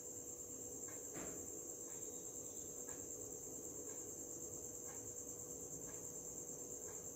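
Continuous high-pitched insect trilling, steady throughout, with a faint low hum and soft faint ticks about once a second.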